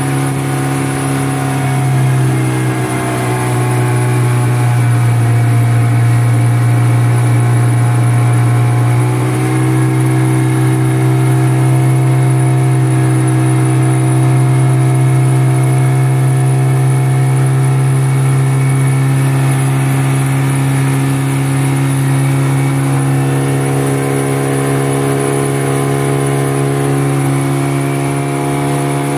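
Outboard motor of a wooden river canoe running steadily at cruising speed, with small shifts in pitch a few times.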